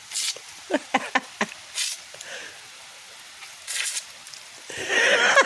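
A dog biting and snapping at a hose's water stream: a quick run of short high yips about a second in, among brief hissing bursts of spray and splashing, with a louder burst of spray near the end.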